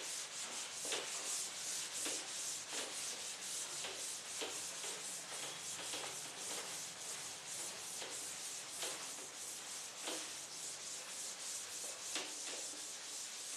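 Continuous scratchy rubbing on a writing surface, made of many quick strokes, as during board work in a lecture.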